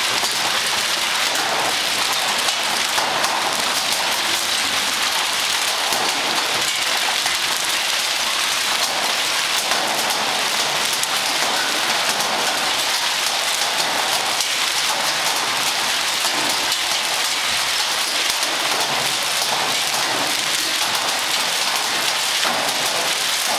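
Hail and heavy rain pelting a concrete yard: a dense, steady hiss packed with fine clicks of stones striking the ground.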